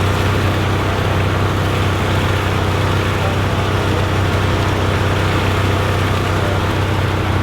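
A fire truck's diesel engine idling steadily, an unbroken low hum.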